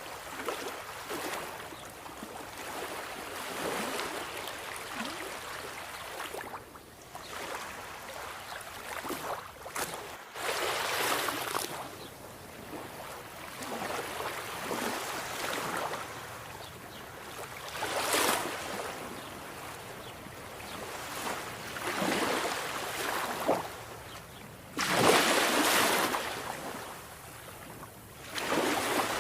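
Sea waves breaking and washing ashore, rising and falling in surges every several seconds, with the loudest wave near the end.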